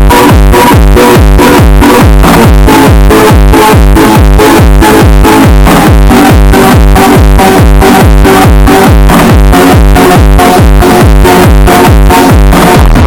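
Very loud electronic dance music: a heavy bass beat repeating at a steady fast tempo under a stepping synthesizer melody.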